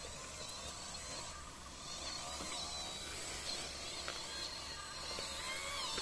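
MN99S 1/12 RC crawler's electric motor and drivetrain whining as it crawls through sand, the pitch wandering up and down with the throttle and dropping near the end.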